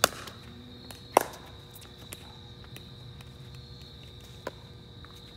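Two sharp pops of a plastic pickleball struck by paddles, about a second apart, then a fainter tap about four and a half seconds in.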